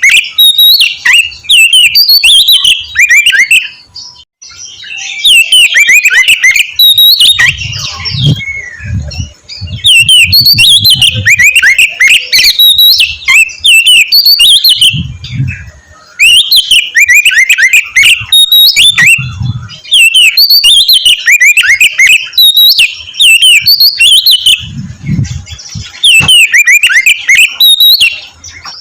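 Oriental magpie-robin (kacer) singing loudly in its aggressive fighting song: rapid runs of sharp whistled and harsh notes in phrases a few seconds long, with brief pauses between them.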